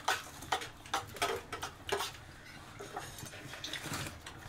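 Cutlery clinking and scraping against dishes: a string of short, sharp clinks, more of them in the first couple of seconds, as food is served and eaten.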